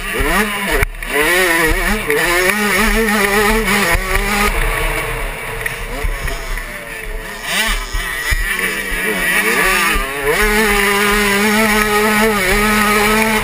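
Suzuki 85cc two-stroke motocross bike engine revving hard under the rider, its pitch rising and falling again and again as the throttle is opened and rolled off through gear changes, then held high near the end.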